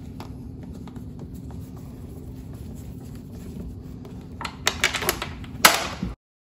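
A steady low hum, then from about four and a half seconds in a run of sharp clicks and clatter as the screws of a refrigerator door flipper hinge are taken out with a power screwdriver. It ends in a loud rustling scrape and then cuts off suddenly.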